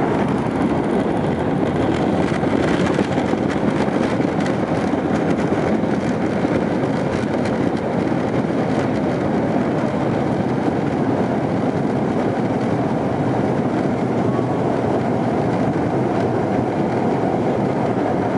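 Airbus A320 cabin noise during landing: a steady, loud rumble with some rattling.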